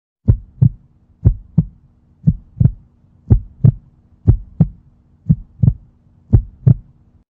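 Heartbeat sound effect: seven double thumps, lub-dub, about one a second, over a faint steady hum.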